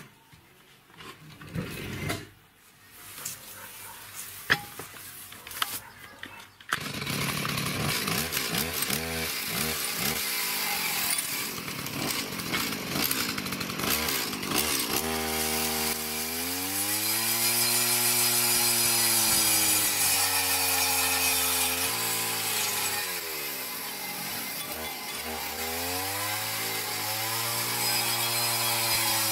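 A few light clicks and knocks at first. Then, about seven seconds in, a chainsaw's two-stroke engine runs loud, its pitch rising and falling several times as it is revved, while the belt-driven cutting disc it drives grinds into a clay brick with a steady high hiss.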